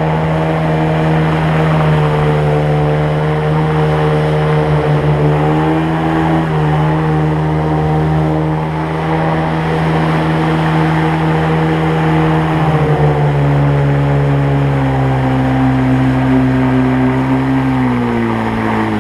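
Mercury 25 jet-drive outboard running steadily under way, driving a PVC tunnel boat upstream. The engine note dips about two-thirds of the way through and falls away again near the end as the engine slows.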